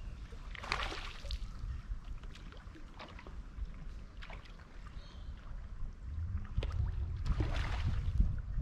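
Small waves washing against a rocky shoreline, swelling twice (about a second in and near the end), over wind rumbling on the microphone that grows stronger in the second half.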